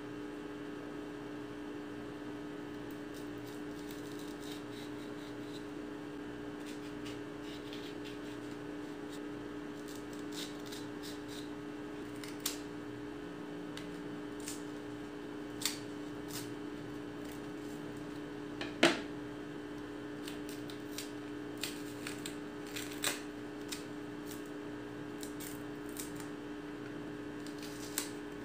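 Kitchen knife cutting and prying the skin off raw green plantains, giving scattered short sharp clicks of the blade against the peel, the sharpest about two-thirds of the way through, over a steady low background hum.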